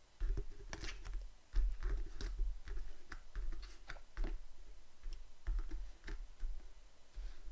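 Picture cards being slid, lifted and tapped by hand on a tabletop: irregular light clicks and card-on-card flicks with soft dull thumps of the hand on the table.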